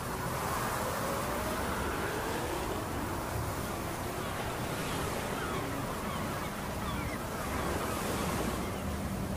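A steady rushing noise with faint gliding tones running through it.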